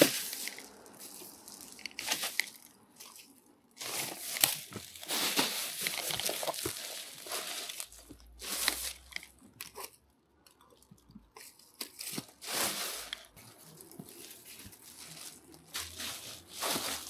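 Litter being picked up and bagged: plastic rubbish and bags crinkling and rustling in irregular bursts, with short pauses between handfuls.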